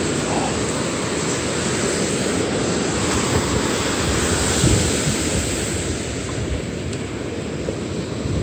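Steady rushing of surf breaking on a sandy beach, mixed with a low, fluttering rumble of wind on the microphone.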